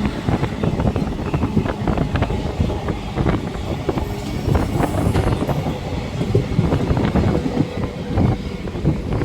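Moving train heard from on board: a steady rumble with irregular clattering and knocking of the wheels on the track.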